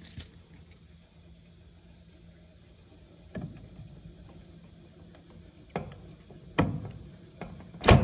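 Pliers snipping and gripping wires in an air-conditioner condenser's control panel: a few sharp, irregularly spaced clicks and snaps over a faint low hum, the loudest near the end.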